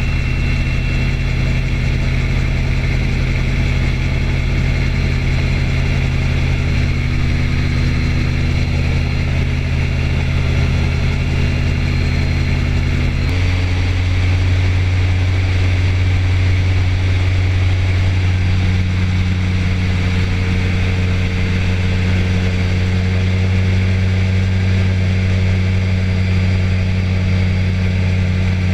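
Engine of a small motorised aircraft, such as an ultralight or paramotor, running steadily in flight and heard on board. Its note shifts abruptly about 13 seconds in, then holds steady again.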